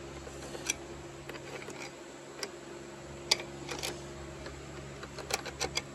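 Scattered light metal clicks and taps as connecting-rod caps are popped onto the rods around the crankshaft of a Kawasaki STX15F engine, the sharpest about three seconds in and a quick cluster near the end, over a steady low hum.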